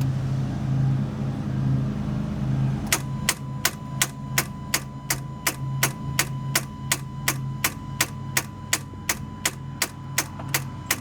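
2012 Kia Soul failing to crank on a weak battery: a low pulsing hum, then from about three seconds in an even, rapid clicking, roughly three clicks a second, from the starter circuit chattering under a big voltage drop. The battery is not holding enough charge to start the car.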